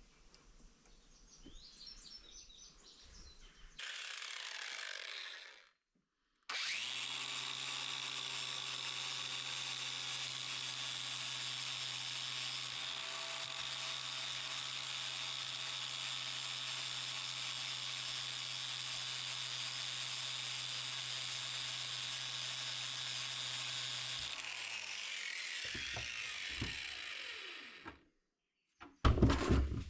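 Electric grinder running steadily as a chain master link is ground down on it, then switched off and spinning down for a few seconds near the end.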